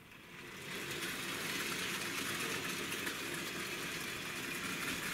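Hornby Dublo Co-Co diesel locomotive model's ring-field electric motor running as it pulls away with a rake of wagons, the wheels rolling over metal track. The sound comes up about half a second in, then holds steady.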